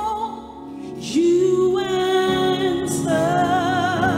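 A woman sings a slow gospel song into a microphone, her voice wavering with vibrato. About a second in, instruments come in underneath and the music grows louder.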